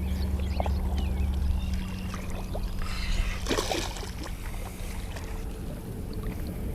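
Water splashing and sloshing as a hooked carp is brought in at the pond's edge, the biggest splash about three seconds in. A low steady hum stops about two seconds in.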